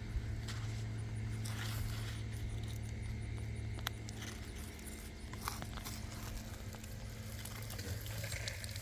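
Faint scraping, rustling and small knocks of hands digging potatoes out of raised-bed soil, over a steady low hum.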